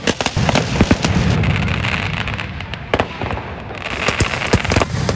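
Aerial fireworks display: many sharp bangs and crackles from bursting shells, one after another, over a continuous low rumble, with a hissing crackle through the middle.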